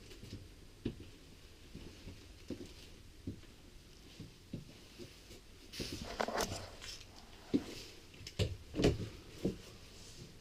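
Footsteps and handling knocks inside a travel trailer: scattered light taps and thuds, with a few louder clunks about six and nine seconds in.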